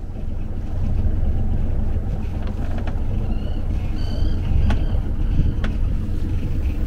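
A small sailboat's engine running steadily as a low rumble while the boat motors out under bare mast. A few faint clicks and brief high whistles sound around the middle.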